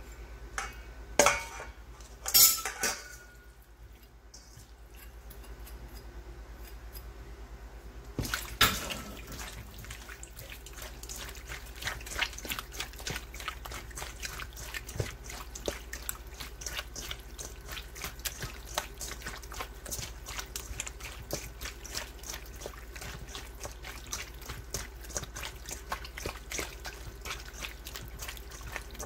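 Hands kneading raw chicken gizzards in a wet marinade in a stainless steel bowl: steady wet squelching with many small rapid clicks. A few sharp metal knocks in the first three seconds as the ladle strikes the bowl.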